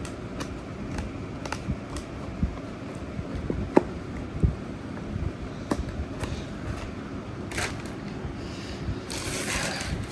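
Scattered clicks and knocks of items and packaging being handled, with a few louder knocks about four seconds in and a short burst of rustling near the end.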